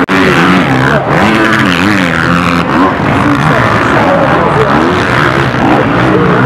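Supercross dirt bike engines revving hard, their pitch swinging up and down as the riders throttle on and off over the jumps.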